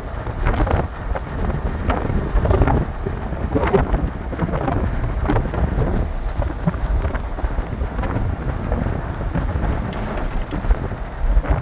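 Wind buffeting the microphone: a steady low rumble with irregular gusts.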